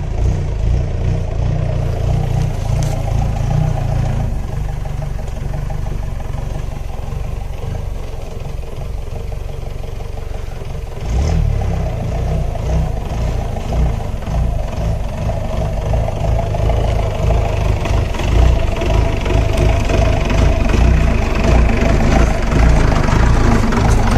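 Four-by-four jeep engine running while driving an off-road track, steady for a while and then louder and working harder from about halfway.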